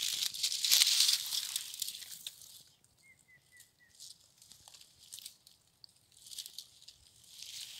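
Dry pine needles and dead leaves rustling and crackling as wild greens are pulled by hand from the forest floor. It then goes nearly quiet, with four faint short chirps about midway and a little more rustling near the end.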